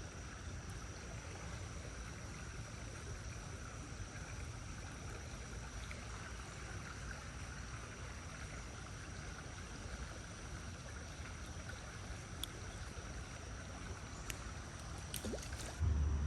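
Small creek water running steadily, an even rushing wash with a low rumble under it. A few faint clicks come near the end, and just before the end a louder low rumble starts suddenly.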